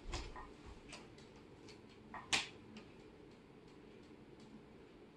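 Faint footsteps of bare feet on a laminate floor: a few light taps and clicks over the first couple of seconds, the sharpest about two and a half seconds in, then only a low room hum.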